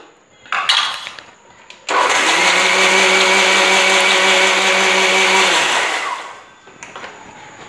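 Electric mixer-grinder with a stainless steel jar running for about four seconds, blending green grapes and water into juice. It starts abruptly and then drops in pitch as it winds down after being switched off. Before it starts there is a short clatter as the steel lid goes on the jar.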